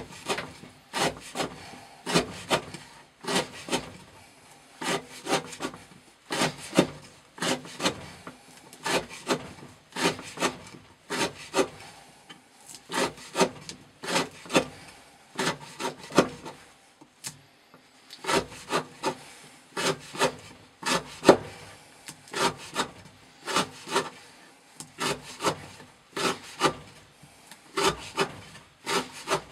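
Knife blade of CPM 15V steel shaving curls off the end of a wooden block, one stroke after another at about three cuts every two seconds, with a pause of about a second just past halfway.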